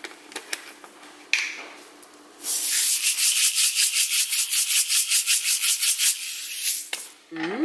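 Rainbow nonpareil sprinkles rattling in their shaker tube as it is shaken quickly over a bowl of dough: a fast, even, hissy rattle of about five shakes a second, lasting some four seconds. It begins a couple of seconds in, after a sharp click.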